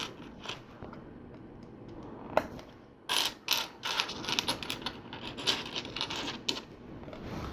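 Plastic LEGO bricks clicking and rattling as pieces are handled and pressed together. One click comes about two seconds in, then a run of irregular clicks for about three and a half seconds.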